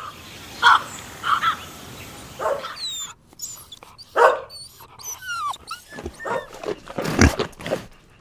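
A puppy whimpering and yelping in a string of short, high calls, some sliding in pitch.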